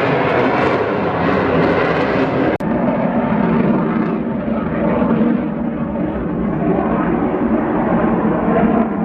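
Loud, steady aircraft noise, broken by an abrupt cut about two and a half seconds in.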